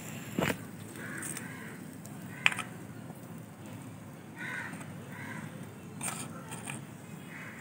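Several short crow caws over a low steady background, with a few sharp clicks, the loudest about two and a half seconds in.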